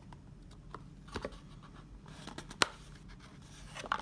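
Hands handling a black cardboard accessory tray from a smartphone box: light scrapes and taps, with one sharp click about two and a half seconds in.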